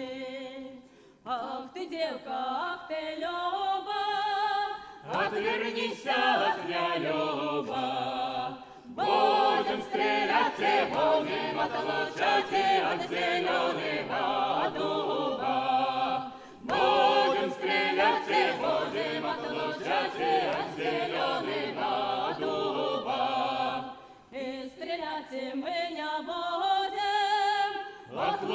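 Mixed folk choir of men's and women's voices singing a cappella, in phrases separated by brief pauses.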